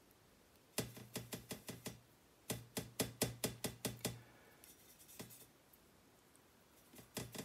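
Quick runs of light clicks, about six a second, from a paintbrush knocking against a palette as watercolour paint is stirred together; two runs with a short pause, a lone click, then the clicking starts again near the end.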